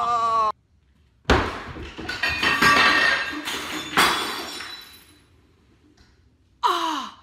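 A sudden crash followed by glass clattering, clinking and breaking, with a second sharp hit about four seconds in, then the noise dies away. Near the end there is a short sound falling steeply in pitch.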